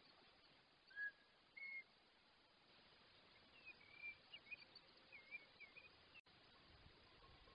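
Faint wild bird calls over a steady hiss: two short whistled notes about a second in, then a run of quick, twittering chirps in the middle.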